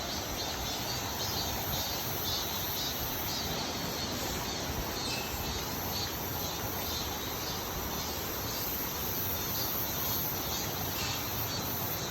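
Insects chirping in short repeated pulses, about two a second, over a steady rushing noise.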